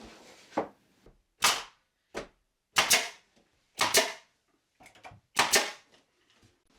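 Nail gun firing about nine times, driving nails into wooden window trim: sharp single shots roughly a second apart, several of them in quick pairs.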